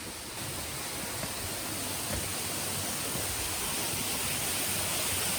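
Rushing water of a mountain waterfall and its stream, a steady noise that grows gradually louder.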